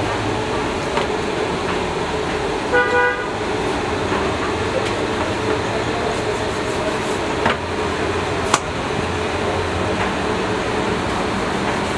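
Steady background hum with one short, single-pitched horn toot about three seconds in. Two sharp knocks come later, from raw beef and a plastic crate being handled.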